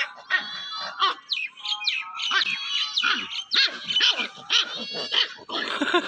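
Puppies yipping and whining in a rapid run of short, high-pitched calls, a few each second.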